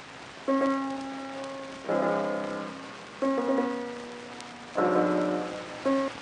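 Piano playing five slow chords, each struck and left to ring and fade before the next.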